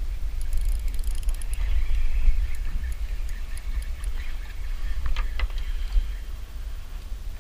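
Spinning reel being cranked as a hooked fish is reeled up: quick clicks and a whirring hiss in the first few seconds, a few sharp knocks about five seconds in, over a steady low rumble.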